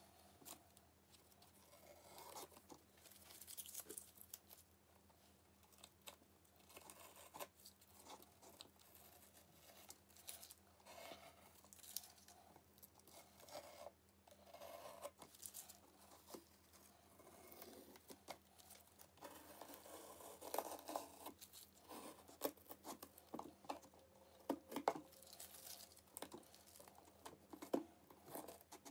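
Green masking tape being peeled off a painted model's surface in short, irregular pulls, faint rips and crackles, with crinkling as the loose tape crumples. The ripping comes denser and louder in the second half.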